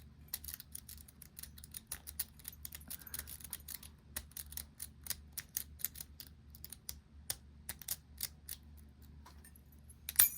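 Metal lock pick raking the pin tumblers of a lock: quick, irregular light metallic clicks, with a louder metallic clatter near the end.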